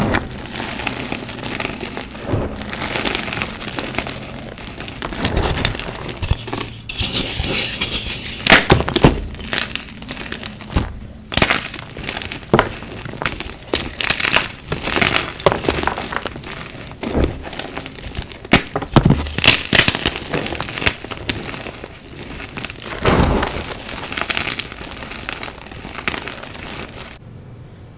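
Hands squeezing and crushing chunks of dyed gym chalk, crunching and crumbling them into powder, with frequent sharp snaps as pieces break apart. It cuts off suddenly just before the end.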